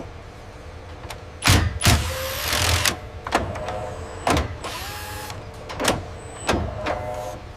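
Aircraft assembly-line work sounds: a run of sharp metallic clanks and knocks, about eight in a few seconds, with short bursts of air hiss and a faint motor whir between them.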